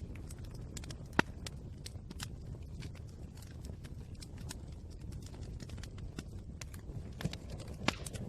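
Fire crackling: scattered sharp crackles over a steady low rumble of the flames, with two louder pops, one about a second in and one near the end.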